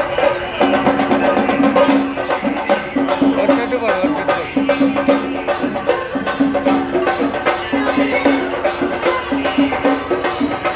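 Music with fast, busy percussion under a melody of held notes that repeat in short phrases.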